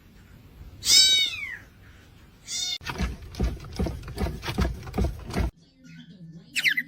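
A cat meows loudly once, a long call rising then falling, followed by a shorter meow. Then about seven sharp knocks or thumps come in quick succession. Near the end a bird starts squawking in quick, repeated falling calls.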